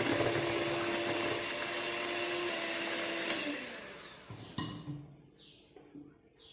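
Electric mixer beating cake batter with a steady motor hum. It is switched off about three and a half seconds in, its pitch falling as it winds down, and a few short soft knocks and rustles follow.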